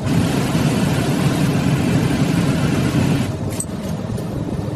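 Automatic shirt-finishing machine blowing air through a shirt on its form: a loud, steady rush that starts suddenly and drops back after about three seconds.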